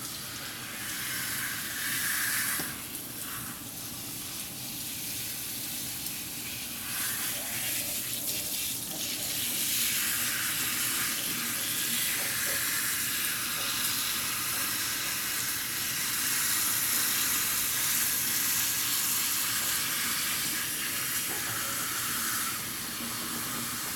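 Water hissing steadily from a kitchen faucet's pull-out sprayer as it rinses a wet cat's fur, splashing into the sink. The spray shifts a little in strength as it moves over the cat.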